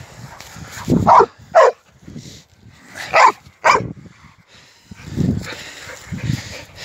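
American Staffordshire Terrier barking four times, in two quick pairs about two seconds apart. A couple of weaker low thumps follow near the end.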